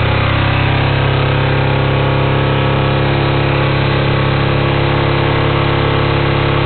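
Kawasaki Ninja 250R's parallel-twin engine, a 2007 unit just swapped in, idling steadily on its first start after the swap.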